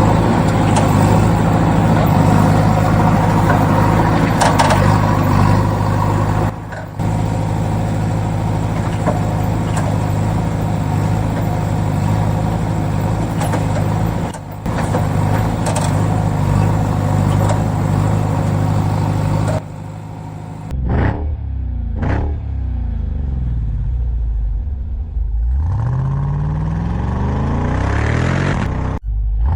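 A heavy vehicle engine runs steadily for most of the time. After a brief drop about twenty seconds in, the engine is revved up and down several times.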